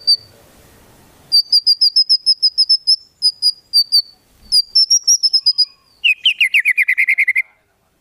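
White-rumped shama singing: three runs of sharp, high notes repeated about eight times a second, then a lower, faster trill that falls in pitch near the end and cuts off suddenly.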